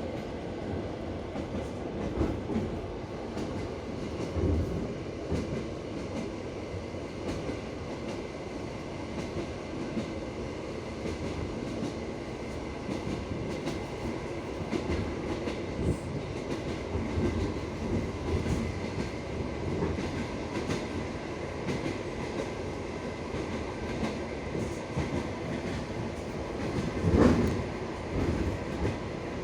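Passenger train coach rolling along the track: a steady rumble of wheels with irregular knocks over rail joints, the loudest one near the end.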